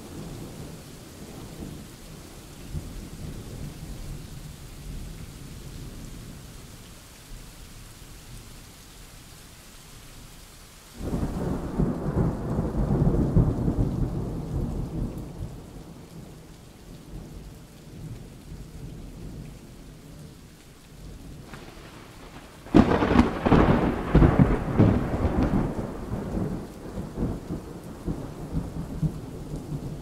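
Thunderstorm: steady rain with two rolls of thunder, a low rumble setting in about a third of the way through and a louder, sharper crack and rumble about three quarters of the way through.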